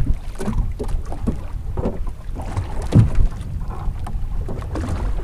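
Wind buffeting the microphone aboard a small boat on the water, with irregular low knocks, the loudest about three seconds in.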